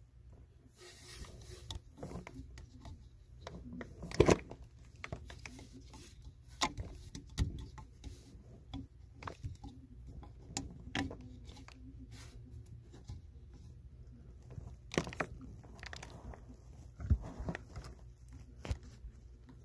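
Hands handling a new rubber raw-water pump impeller at the pump housing: scattered clicks, taps and rustles. There are a few louder knocks, the loudest about four seconds in.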